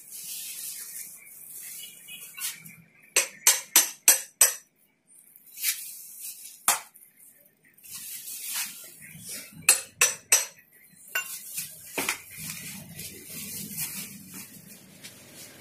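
Sharp, clinking hammer strikes on a tool held against an old car battery's case, breaking it open. They come in quick runs of four or five, with single blows in between.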